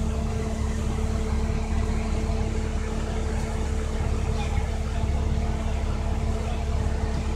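Bus engine and road noise heard from inside the passenger cabin: a steady low rumble with a constant hum.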